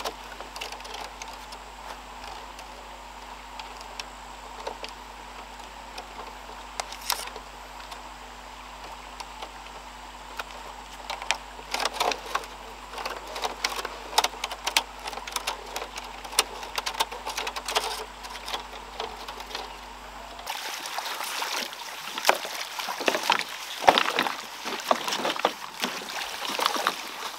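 Water splashing and sloshing, with many small clicks and clatters; it gets busier and louder about twenty seconds in.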